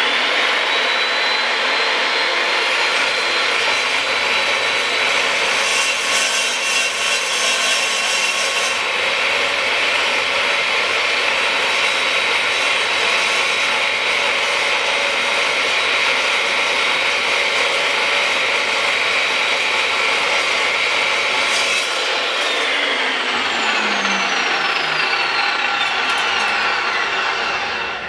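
Makita LC1230 cold-cut metal chop saw running and slicing through a half-inch by inch-and-a-half bar of mild steel: a steady high whine over a rasping cut. About 22 seconds in the motor is switched off and the whine falls away as the blade spins down.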